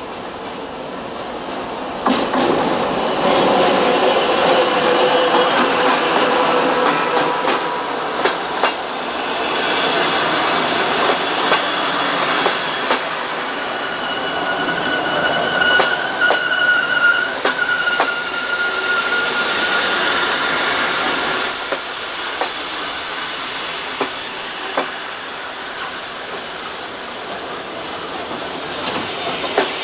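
A diesel-hauled passenger train passing close by: the locomotive goes by about two seconds in, then the coaches roll past with the wheels clicking over the rail joints. In the middle there is a steady high metallic squeal from the wheels and running gear.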